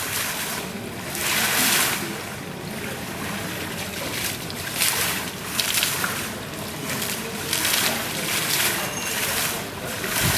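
Pavement fountain jets spurting up from the paving and splashing back onto the wet stones: a rushing, splashing hiss that swells and dies away every second or two.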